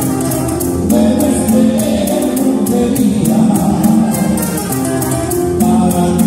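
Live trio music: a man singing with two acoustic guitars strumming, and a light percussion beat keeping steady time.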